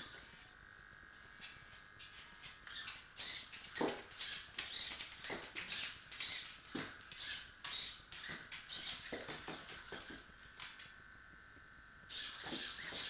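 Hexapod walking robot's hobby servos whirring and its plastic feet clicking and tapping on a tile floor as it walks, in irregular bursts of rapid clicks. Twice, near the start and shortly before the end, the clicking drops away for a couple of seconds, leaving only a faint steady servo whine.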